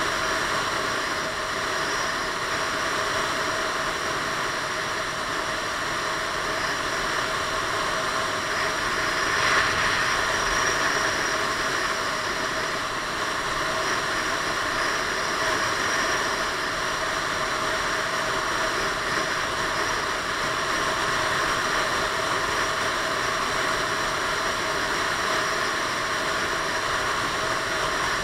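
Piaggio Beverly 500 scooter riding at road speed: a steady rush of wind and road noise over the on-board camera, with the scooter's engine running beneath it. There is a brief swell in loudness about ten seconds in.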